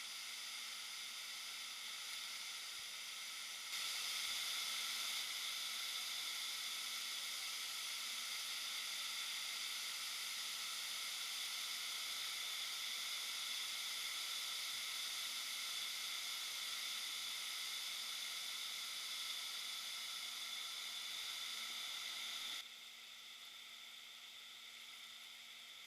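Steady hiss of rushing river water, stepping up abruptly about four seconds in and dropping back just as abruptly near the end.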